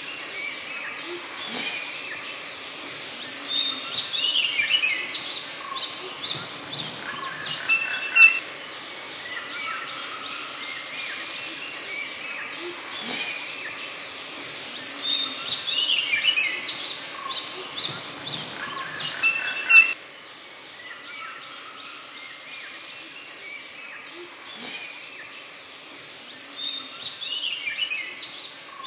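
Forest birds calling, barbets among them: overlapping whistled calls over a steady background, with three loud bursts of rapid, sweeping notes, about four seconds in, about halfway and near the end.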